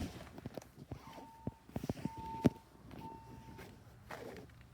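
Building fire alarm sounding a single steady beep tone: three beeps of about half a second each, then a pause. This is the temporal-three pattern that signals evacuation. Scattered sharp knocks sound over it, the loudest about halfway through.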